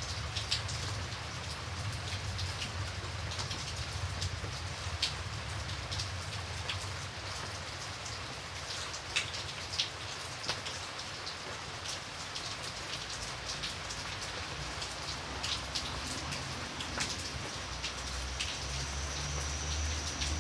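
Light rain falling steadily, with individual drops ticking sharply over the soft hiss of the shower. A low rumble builds near the end.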